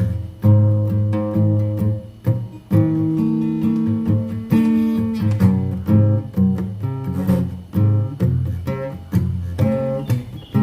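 Instrumental music: acoustic guitar picking and strumming chords over a bass line.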